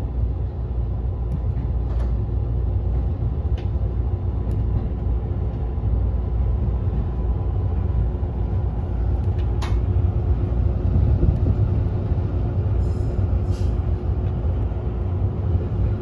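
Cabin noise of a Meitetsu limited-express train car running: a steady low rumble with a constant hum over it. A few sharp clicks break in, one near the start, another a couple of seconds later and one more just before the middle.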